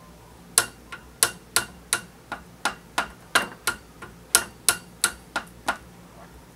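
A metal spoon tapping against a metal muffin tin, a sharp clink about three times a second, as batter is knocked off the spoon into the cups.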